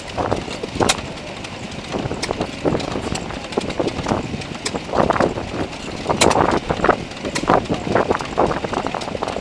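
Vintage stationary engines running slowly, with irregular knocks and clatter from their firing strokes and valve gear, busier in the second half; among them a small hopper-cooled engine belt-driving a water pump.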